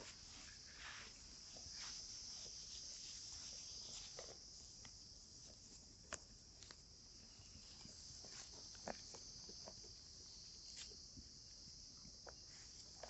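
Faint steady high-pitched insect chorus, with scattered soft clicks and rustles and a couple of sharper snaps a little past the middle.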